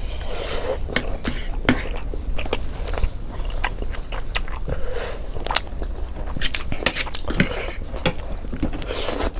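Close-miked eating: biting and chewing, with many sharp, irregular clicks and crunches.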